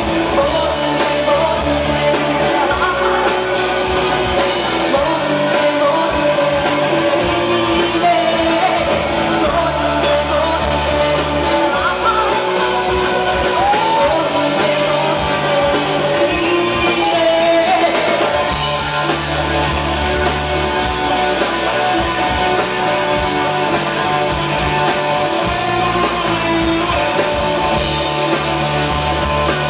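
A live rock band plays electric guitars and bass, with a woman singing a wavering melody over them. Loud and full throughout, as heard from the audience.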